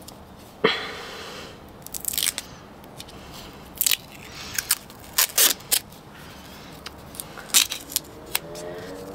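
Hands handling grafting tools and materials: about a dozen scattered sharp clicks, snaps and short rustles at uneven intervals, the sharpest about three-quarters of the way through.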